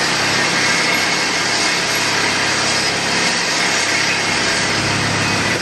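Diamond wire saw running steadily, a continuous hissing whir as the wire cuts through a bridge pile, over a low hum that grows a little stronger near the end.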